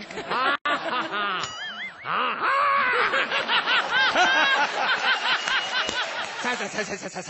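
Several people laughing heartily at once, many voices overlapping in a continuous wave of laughter.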